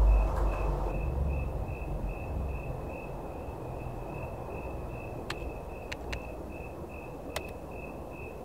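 Steady low brown noise, with a high chirping tone pulsing about three times a second over it and a few sharp laptop-key clicks past the middle.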